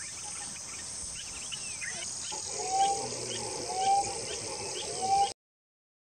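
Birds calling over a steady high-pitched insect drone. About halfway through, a short, arched whistled note comes three times, roughly a second apart, loudest of all, over faint high chirps. The sound cuts off suddenly near the end.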